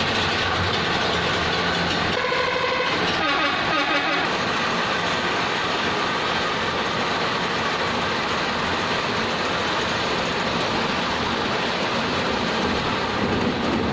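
A children's caterpillar roller coaster train running on its steel track, a steady clatter of wheels on the rails.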